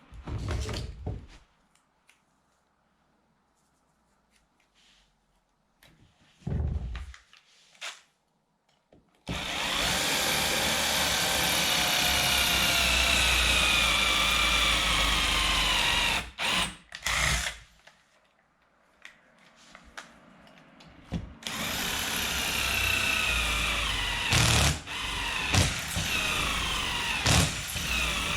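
A handheld power tool running in short bursts, then in two long runs of about seven seconds each, its motor pitch slowly falling as it works under load.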